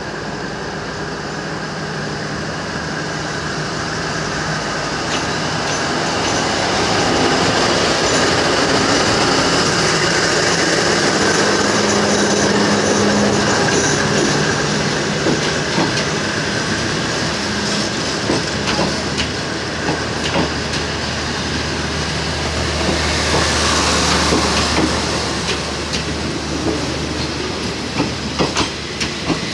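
A diesel locomotive draws in and passes close by, its engine humming, and then passenger coaches roll slowly past with their wheels clacking over the rail joints.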